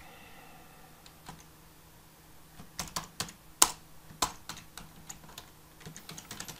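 Keystrokes on a computer keyboard as code is typed: a few scattered taps, then a quicker run of them from about three to four and a half seconds in.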